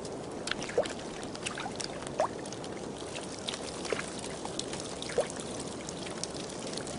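Steady trickling and pouring of water with scattered small wet clicks, and a few brief faint chirps.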